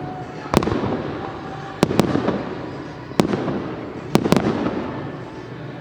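Aerial firework shells bursting: about six sharp bangs, two of them in quick pairs, each trailing off in an echoing rumble.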